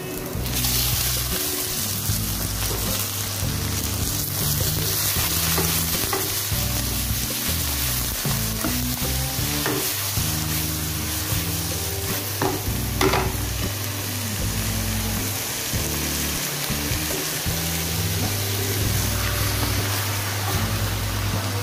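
Raw chicken livers sizzling in hot oil as they are dropped into a wok of sautéing onions and garlic. The sizzle jumps up about half a second in, then the livers are stirred with a metal spoon, which scrapes and knocks against the pan a few times in the middle.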